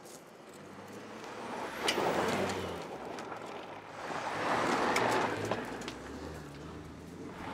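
Ford Expedition FX4's 3.5-litre twin-turbo V6 running as the SUV drives over a dirt and gravel trail, tyres crunching on the loose surface with a few sharp clicks of stones. The noise swells twice, about two seconds in and again near five seconds.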